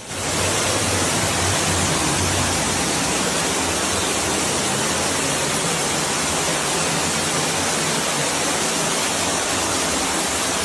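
Storm noise: a steady, even rush of heavy rain and running water that starts abruptly and holds level throughout.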